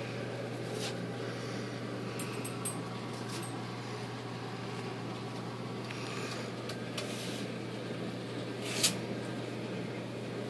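Steady hum of a reef aquarium's pumps and powerhead with a constant wash of circulating water, broken by a few faint clicks and one sharp click near the end.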